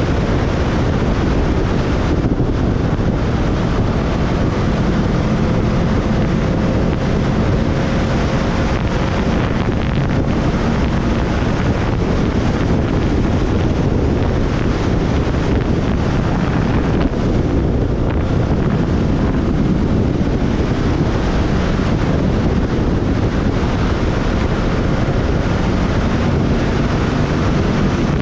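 Loud, steady wind rush on the microphone of a moving motorcycle, with the engine's drone faintly underneath.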